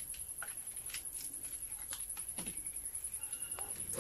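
Faint, scattered clicks and light scrapes of handwork on a refrigerator's damaged lower cabinet as it is cleaned.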